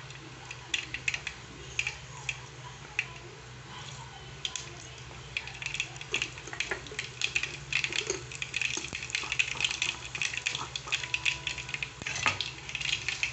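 Mustard seeds spluttering and popping in hot oil in an aluminium pan. Scattered pops at first, thickening into a dense crackle from about five seconds in. The popping is the sign that the oil is hot enough for the tempering.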